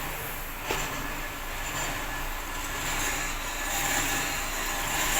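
Steady running rumble of a heavy truck on the move, with a single short click under a second in.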